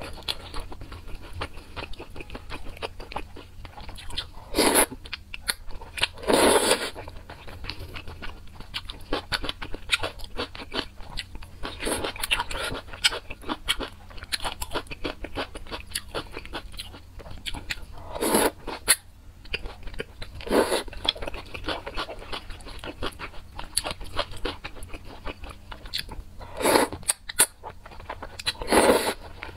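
Close-miked eating of thick noodles in spicy sauce: steady wet chewing, with several loud slurps as strands are sucked in.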